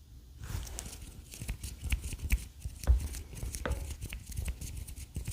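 ASMR hand sounds close to the microphone: hands rubbing and tapping, making a dense crackle of small clicks and rustles that starts about half a second in, with a soft thump about three seconds in.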